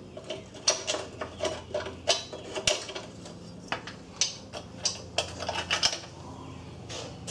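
Metal fuel tank strap clinking against the truck frame as its end is turned in the frame slot: a run of irregular light metallic clicks that stops about six seconds in.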